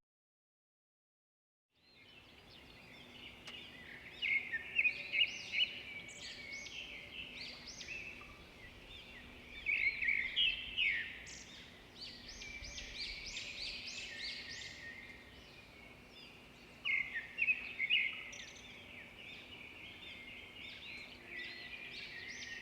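Small birds chirping and twittering, many short overlapping high calls in quick runs, with louder bursts around a quarter, half and three-quarters of the way through. A faint steady low hum sits underneath.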